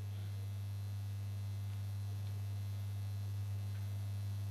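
Steady low electrical mains hum with a weaker higher overtone.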